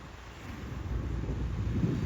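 Wind buffeting the microphone: a low, gusty rumble that swells toward the end.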